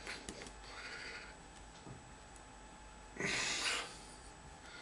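A person's breath and mouth noises, faint and scattered, with one short hissing puff of air a little after three seconds in.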